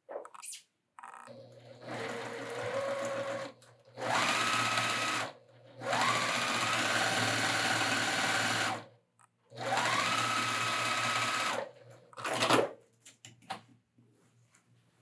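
Juki semi-industrial sewing machine stitching through layered wool, in four runs of a few seconds each, the motor whine rising in pitch as each run starts and then holding steady. A short sharp clack follows near the end.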